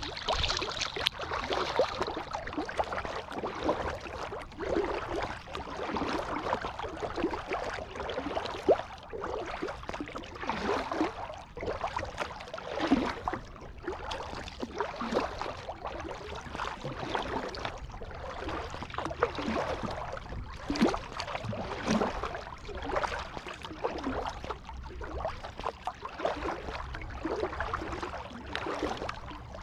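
Kayak paddle blades dipping and splashing in the water, a stroke every second or two, with water gurgling and trickling along the hull.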